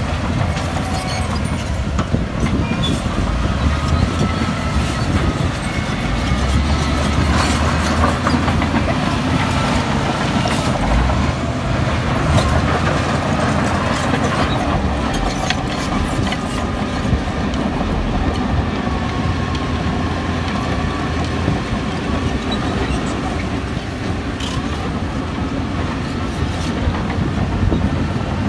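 Heavy diesel earthmoving machines running, their engine note rising and falling, with the clatter of steel crawler tracks and scattered metallic clanks.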